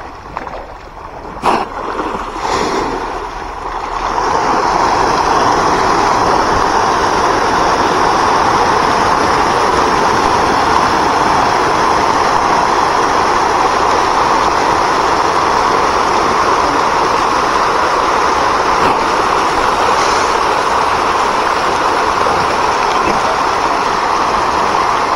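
Steady rushing water that swells in about four seconds in and then holds at an even level, after a single sharp knock near the start.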